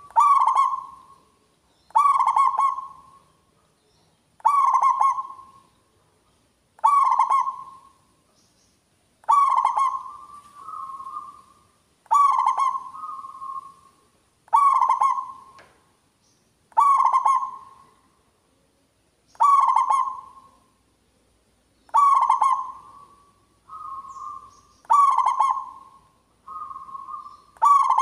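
Zebra dove (perkutut) singing: a loud, short, stuttering cooing phrase repeated about every two and a half seconds, a dozen times, several of them followed by a softer, higher note.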